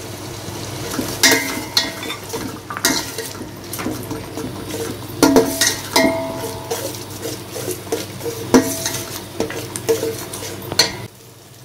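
Slotted metal spatula stirring a thick masala in a steel pot, scraping and clinking irregularly against the pot, with the masala sizzling underneath. It stops suddenly near the end.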